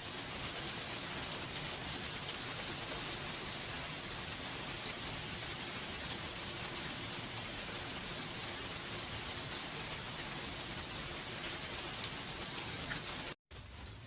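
Steady rain falling, an even hiss of many drops. It cuts out to silence for a split second near the end.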